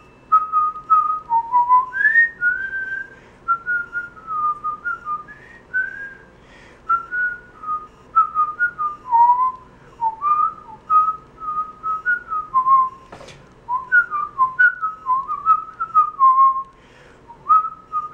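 A man whistling a song's melody with his lips: a single clear tone hopping between short notes, with small slides up and down and brief pauses between phrases.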